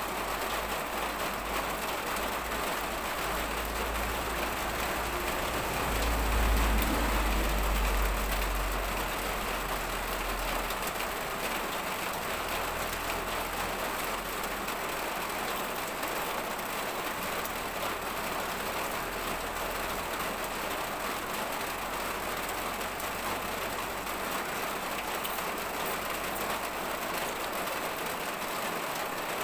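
Steady hiss of background noise, with a low rumble that swells about six seconds in and fades again a few seconds later.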